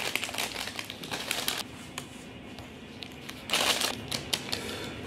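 Plastic packaging being crinkled and handled: a run of small crackles, then a louder rustle about three and a half seconds in, over a faint steady hum.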